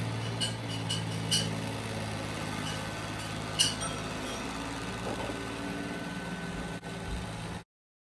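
Neato Botvac robot vacuum running: the steady hum of its suction fan and brush motor, with a few sharp clicks, the loudest about three and a half seconds in. The sound cuts out abruptly just before the end.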